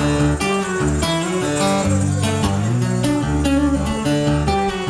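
A rock band plays the intro of a song live: an electric guitar picks chords, with deep held notes underneath that change every second or so.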